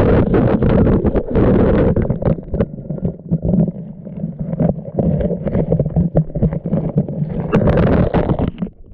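Action camera submerged through a hole in the lake ice: a loud, muffled underwater rumble of water moving against the camera housing, with many knocks and scrapes as it is jostled in the hole.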